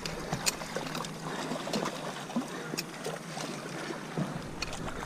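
Water lapping and trickling at the shoreline, a steady wash with scattered sharp clicks and knocks.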